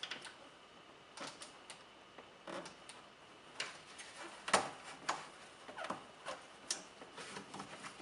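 Gloved hands pressing and working rubber grommets into the speedometer mounting holes of a fiberglass race fairing. Scattered faint clicks, taps and rubbing, with one sharper click about halfway through.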